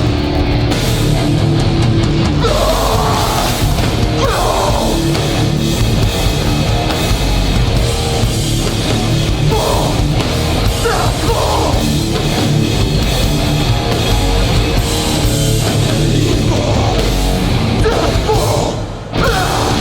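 Hardcore punk band playing live, with heavy distorted guitars, pounding drums and shouted vocals coming in at intervals. The band stops briefly near the end, then crashes back in.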